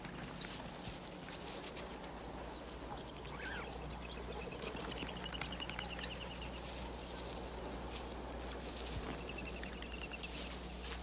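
Soft scratching and rustling patter of Cape ground squirrels foraging and nibbling at their burrow. A faint high trill comes in a few times over a low steady hum.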